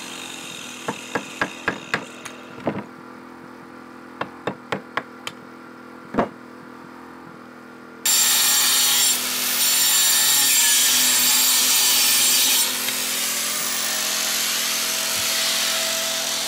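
A hammer knocking on a clay brick, a string of sharp separate strikes; then, about eight seconds in, a DeWalt angle grinder cutting into the brick with a loud steady grinding noise that eases a little near the end.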